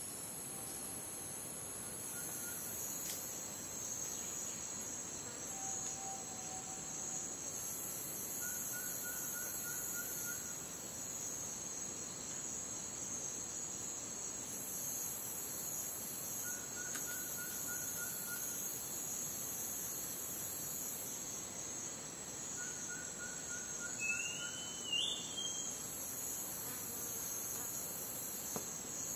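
Rainforest insect chorus: a steady high pulsing chirring of crickets, with a higher buzzing chorus that comes and goes every few seconds. Three times a short trill of evenly spaced notes sounds, and a brief rising call cuts in about 24 seconds in.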